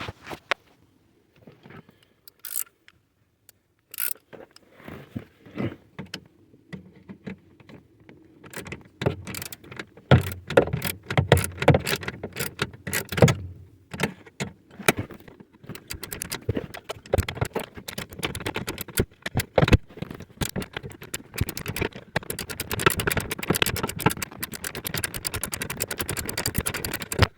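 Ratchet wrench on a 7 mm bolt clicking rapidly as the bolt is backed out, after scattered clicks and scrapes of tools being handled. The steady fast ratchet clicking starts about halfway through.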